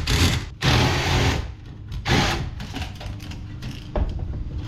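Power drill-driver run in three short bursts, the longest about a second, backing out a screw from a scrap computer.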